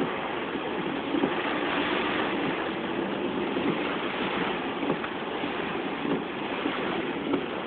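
Car driving through standing floodwater, its tyres throwing up a steady hiss of spray, with the engine running faintly underneath.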